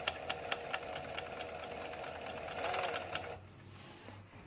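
Overlock sewing machine (serger) running under light pressure on its foot pedal, stitching fabric: a steady hum with even clicking about four to five times a second, running more smoothly before it stops about three and a half seconds in.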